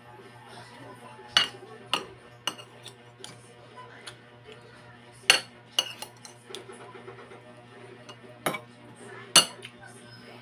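Cutlery clinking against a plate while eating: about seven sharp, irregular clinks, the loudest about halfway and near the end.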